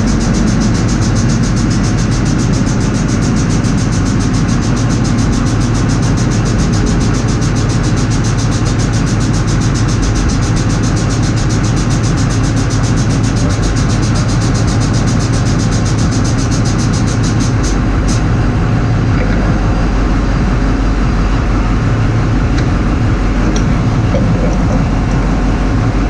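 A heavy diesel engine running steadily at idle. A high hiss on top drops away about two-thirds of the way through, and a few light clicks follow.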